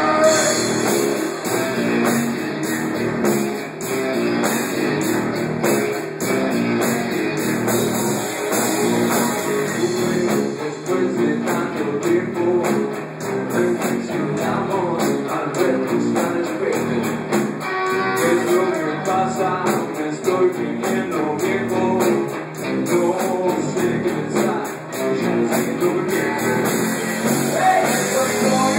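Rock band playing live and amplified: electric guitars and a drum kit, with a man singing into a microphone.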